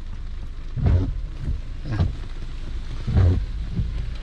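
Rain falling on a car's body, heard from inside the cabin, over a steady low rumble, with three heavier thuds about a second apart.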